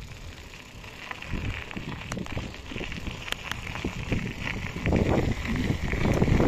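Wind buffeting the microphone of a cyclist setting off on a bicycle, growing louder toward the end, with scattered light clicks and rattles.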